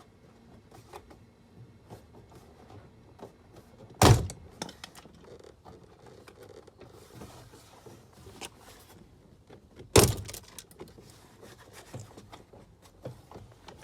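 Plastic interior door panel being worked loose from a car door: two loud thunks about four seconds apart as the trim clips pop free, with small clicks and taps of plastic and tools between.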